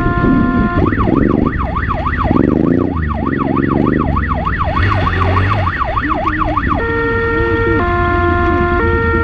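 Police motorcycle siren switching from a two-tone hi-lo call to a fast rising-and-falling wail about a second in, at about three sweeps a second, then back to the two-tone near the end. The motorcycle's engine revs underneath as it rides over rough ground.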